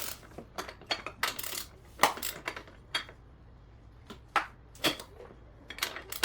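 Metal tools and parts clinking and clanking as they are handled during work on a motorcycle brake pedal: a scattered series of sharp taps, the loudest about two seconds in.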